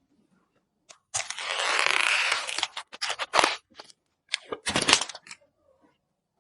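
PC parts being handled during assembly: a long scraping or peeling rasp about a second in, followed by a series of sharp clicks and knocks of plastic and metal parts.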